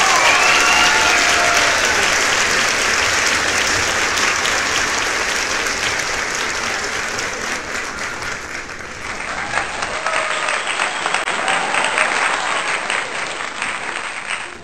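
A large crowd clapping steadily, with a brief dip in loudness about eight seconds in.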